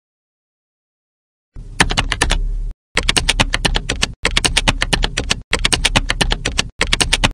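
Computer keyboard typing: rapid keystrokes in five quick runs with brief pauses between them, starting about a second and a half in.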